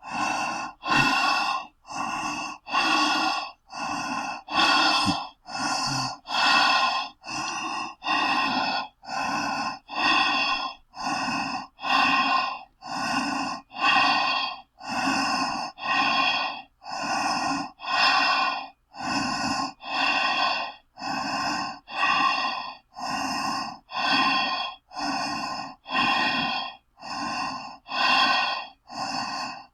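A person breathing steadily through a gas mask, one breath in or out about every second. Louder and softer breaths alternate in an even, unbroken rhythm.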